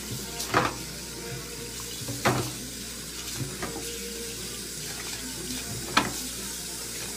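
Water running from a kitchen faucet into a stainless steel sink while raw chicken pieces are rinsed under it, with a few short knocks and splashes as pieces are handled, three of them standing out.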